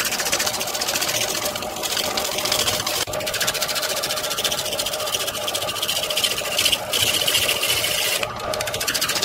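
Wood lathe spinning a large wooden blank while a hand-held turning tool roughs it down: a fast, even rapping chatter as the tool bites the out-of-round wood, over the steady hum of the lathe, with a few brief breaks in the cutting.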